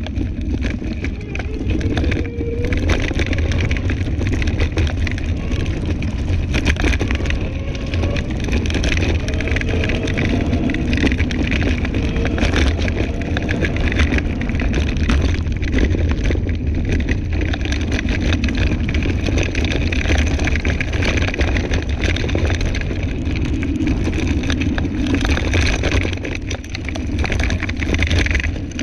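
Scooter riding over a bumpy dirt trail: a steady low rumble with many short rattles and crunches as the tyres and frame go over the ground.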